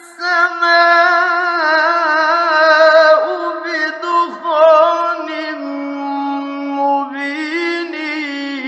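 Male voice reciting the Quran in melodic tajweed style, holding long ornamented notes whose pitch wavers up and down. The pitch steps down about halfway through and climbs back near the end, on an old radio recording.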